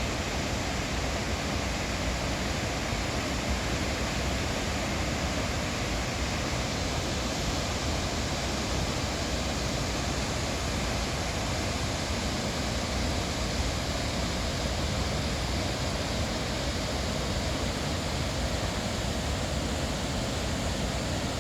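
Waterfall: falling water making a steady, unbroken rushing noise.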